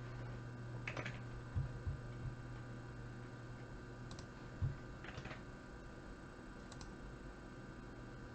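A few scattered, quiet clicks of computer mouse and keyboard use over a steady low electrical hum.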